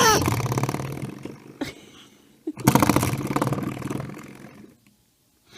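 Spring doorstop flicked twice, its coiled spring twanging with a buzzing wobble that dies away over about two seconds each time; the second twang comes about two and a half seconds in.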